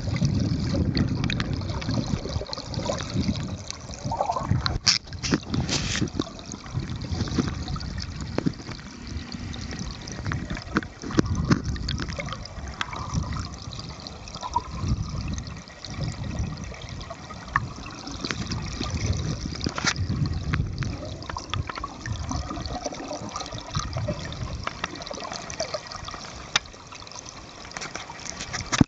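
Stream water flowing, heard from underwater: a steady, uneven rush and gurgle with scattered sharp clicks.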